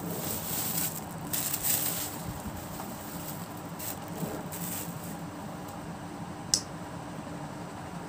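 Rustling as cotton and a plastic packet are handled, in soft bursts, with one sharp click about six and a half seconds in. A steady low hum runs underneath.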